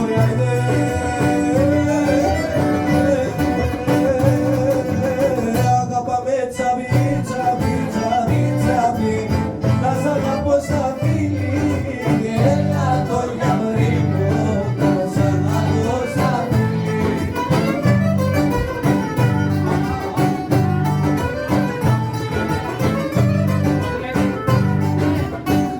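Old Greek rebetiko-style music: plucked strings and violin playing a wavering melody over a steady, repeating bass rhythm.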